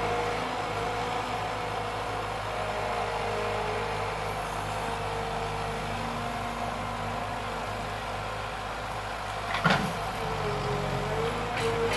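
Wheeled forestry harvester's diesel engine running under load with a steady whine as its crane boom and harvester head swing. A single sharp knock comes near the end.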